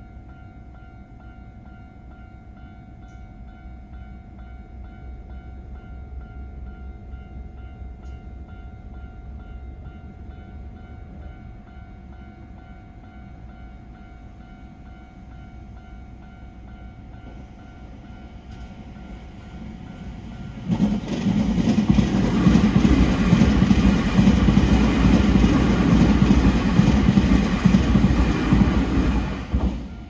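Japanese level-crossing alarm bell ringing in a steady, fast repeating pattern with the barriers down; about two-thirds of the way through a Nankai train passes through the crossing, loud for about nine seconds, then cuts off suddenly.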